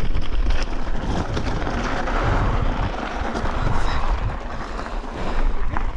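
Mountain bike rolling fast down a loose rocky trail: knobby tyres crunching over gravel and stones, with scattered clicks and rattles from the bike, over a low rumble of wind on the camera microphone.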